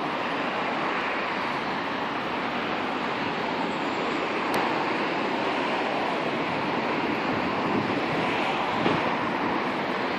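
Steady rushing wind noise.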